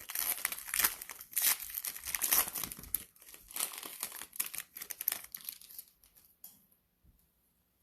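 Cellophane wrapper of a Panini Mosaic cello pack of basketball cards being torn open and crinkled. The crinkling stops about six seconds in.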